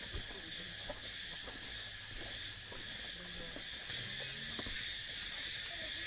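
Insects in a subtropical jungle droning steadily in a high hiss that grows a little louder about four seconds in, with a few faint footsteps on the forest trail.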